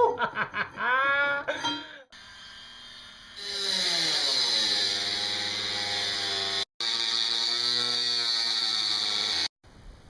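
A small motor, like a power tool's, whirring with a whine that sinks in pitch and then holds steady, broken off twice by sudden cuts.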